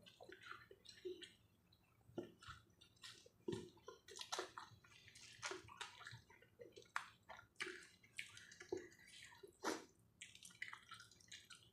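Faint, wet chewing and lip-smacking of a person eating, an irregular run of small smacks and clicks.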